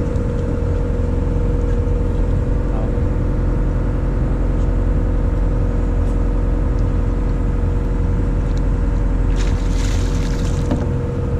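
Engine running steadily aboard a fishing boat: a constant low drone with a steady hum. A brief rushing noise about ten seconds in.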